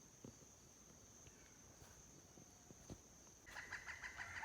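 Quiet insect drone with a steady high thin tone and a few faint ticks. About three and a half seconds in, a rooster starts crowing.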